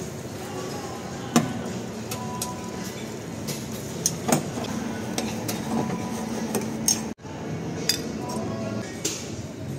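Metal spoon and ladle clinking against a steel pan and a plate: several sharp clinks, over background music.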